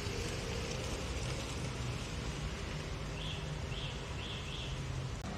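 City street ambience: a steady low hum of traffic and running engines, with four short high chirps in quick succession between about three and four and a half seconds in.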